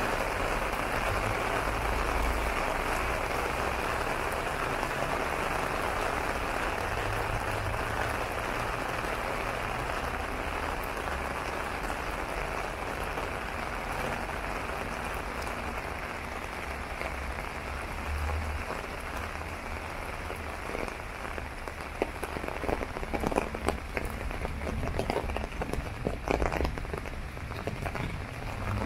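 Heavy rain falling on an umbrella and wet paving, a dense steady patter that thins out over the second half. As it eases, single large drops tap loudly and irregularly.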